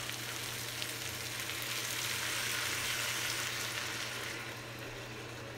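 Beef broth poured from a carton into a hot pot of browned lamb and vegetables, sizzling as it hits the hot pan. The hiss swells to its loudest midway and then dies down near the end.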